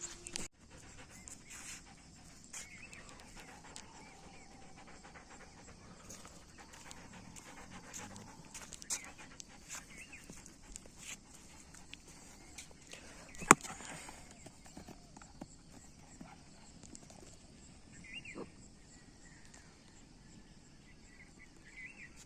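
A Doberman panting, with scattered light taps and clicks and one sharp knock about halfway through.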